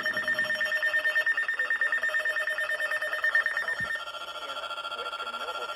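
Weather radio alert tone: a loud, rapidly pulsing electronic tone that steps down to a lower pitch about four seconds in. It is the alert signal that comes before a broadcast severe thunderstorm warning.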